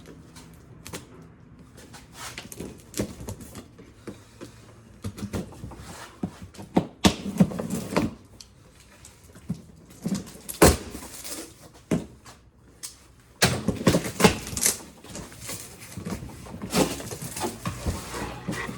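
A cardboard box being opened and handled: flaps scraping and rustling, with sharp knocks and thumps at irregular moments, the loudest about a third of the way in and again past the middle.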